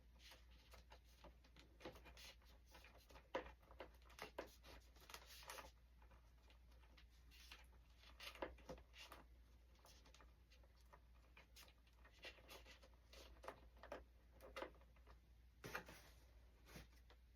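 Faint, scattered clicks and rustling of hands handling and tucking servo wires into a foam model airplane's fuselage.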